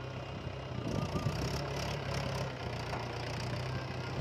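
Mahindra 475 DI tractor's four-cylinder diesel engine running steadily under load while pulling a tine cultivator through dry soil.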